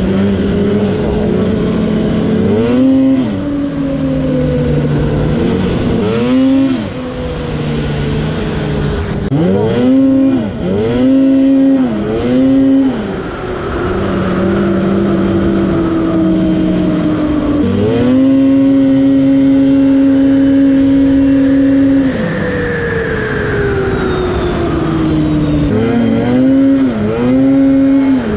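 Snowmobile engine running at trail speed under the rider, its pitch drifting with speed and briefly dipping and springing back up several times as the throttle is eased and reapplied, with one long steady high-pitched stretch that then falls away.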